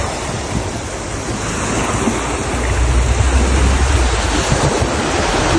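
Surf breaking and washing up a sandy beach, with wind buffeting the microphone, strongest about halfway through.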